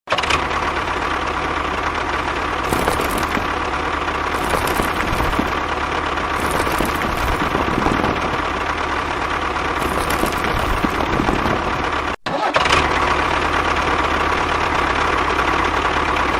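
Motor or engine running steadily, with a constant whine over a low hum. It breaks off for a moment about twelve seconds in and then resumes.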